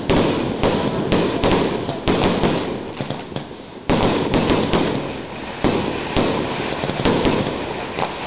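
Fireworks going off close by: sharp bangs every fraction of a second over a dense rumble of further explosions, with a louder burst of bangs about four seconds in.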